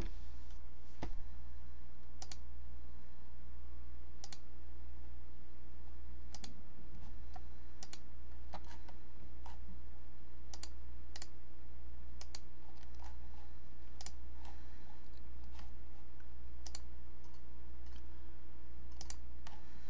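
Sparse, irregular clicks of a computer keyboard and mouse, one or two a second, over a steady low hum.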